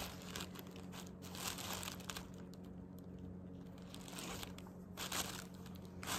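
Faint, irregular rustling and crinkling of tissue paper and baby-clothes fabric being handled during unpacking, with a few small clicks.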